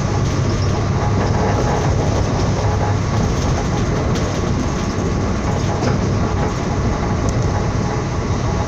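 Train running on the rails: a steady, loud noise with a low hum underneath.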